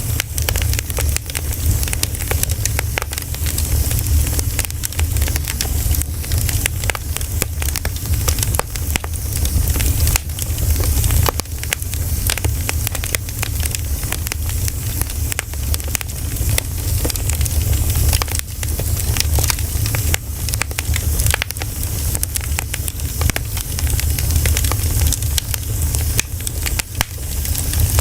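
Campfire of burning pine cones crackling, with many small sharp pops and snaps scattered throughout over a steady low rumble.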